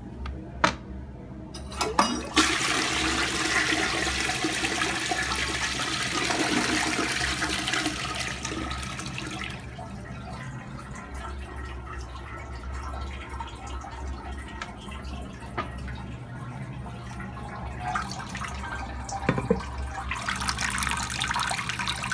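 Eljer Patriot toilet flushing: a couple of sharp clicks, then the rush of the flush for about seven seconds. After that comes the quieter steady water noise of the tank and bowl refilling through a Fluidmaster Pro fill valve, which grows louder again near the end.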